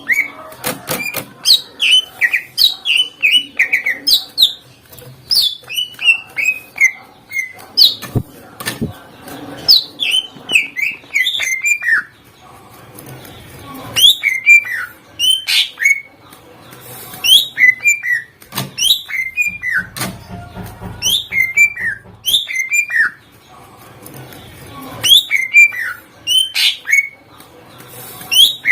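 Cucak ijo (green leafbird) singing loudly: quick runs of sharp whistled notes that each drop in pitch, in repeated phrases with short pauses between them.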